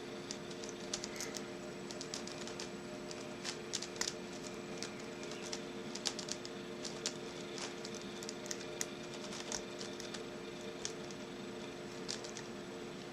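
Small, irregular metallic clicks and scratches of a lock pick raking and setting the pin stacks of a 6-pin euro cylinder lock under tension, over a steady low hum.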